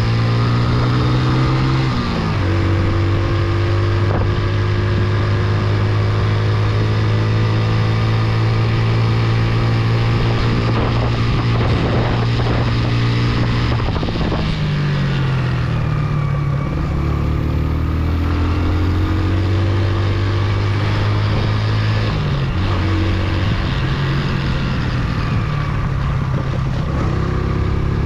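Motorcycle engine running under load on an off-road climb, holding steady revs with its pitch dropping sharply about two seconds in, again around fifteen seconds and once more near twenty-two seconds, as with gear changes or easing off the throttle.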